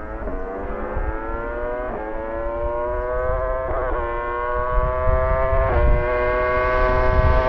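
Aprilia V4 motorcycle engine approaching down the road under a long pull in one gear, its note climbing steadily and growing louder.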